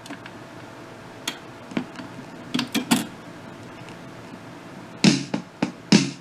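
Scattered sharp clicks and knocks from handling the stereo console and its turntable, with a faint steady background hum. Clicks come in pairs early on and in a quick cluster near the end.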